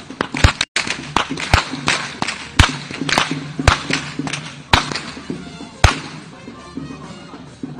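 Perahera whip-crackers' long whips cracking, a dozen or so sharp cracks at uneven intervals, about two a second, stopping about six seconds in. A steady low drone of music runs underneath.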